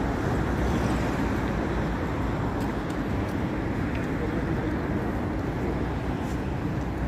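Steady city street traffic noise from passing cars, an even wash of sound without breaks.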